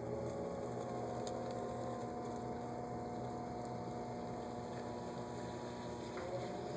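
Electric potter's wheel running with a steady motor hum, and wet clay swishing under the hands as it turns. One of the hum's tones stops about six seconds in.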